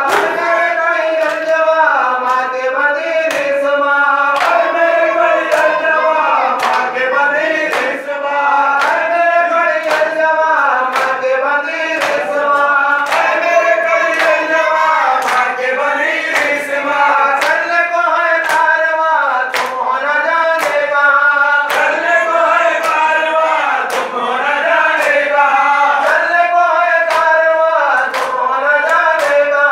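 A group of men chanting a mourning lament in unison, with sharp hand slaps on bare chests (matam) keeping the beat about once a second.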